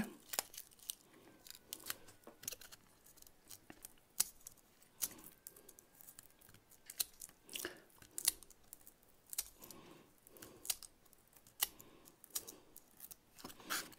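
Straight-bladed hobby knife scraping and scoring the surface of a Styrodur extruded polystyrene foam strip, taking off a shallow layer in short strokes. It makes faint, irregular little scratches and clicks.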